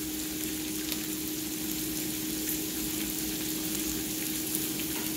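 Sauce sizzling and bubbling in a hot frying pan as a wire whisk stirs a cornstarch slurry into it to thicken it. A steady hiss throughout.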